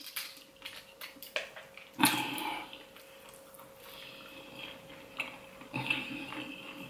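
Close-up eating sounds: a fork clicking against a foil tray, then chewing and wet mouth sounds while battered flounder is eaten, loudest about two seconds in. A faint steady hum lies underneath.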